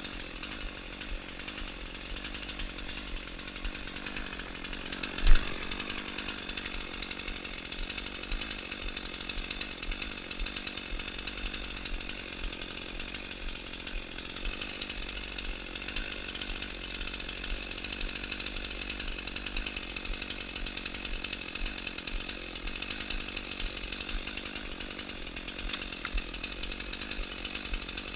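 Chainsaw engine running steadily throughout, with one sharp, loud knock about five seconds in.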